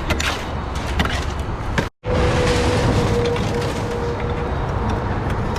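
Diesel engine of heavy equipment running steadily, with scattered clicks and knocks in the first two seconds. The sound cuts out for an instant about two seconds in, then the engine runs on with a faint steady whine.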